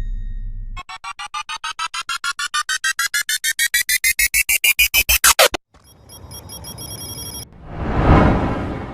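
Editing sound effects: a run of synthetic beeps that speed up and climb in pitch for about five seconds, then cut off abruptly. A short buzzy noise follows, then a whoosh that swells and fades near the end.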